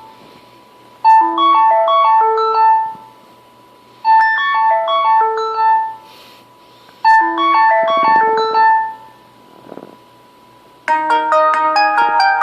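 Stock LG G4 ringtones being previewed. A short melody of about two seconds plays three times with pauses of about a second between. Near the end a different, busier ringtone with several notes at once starts.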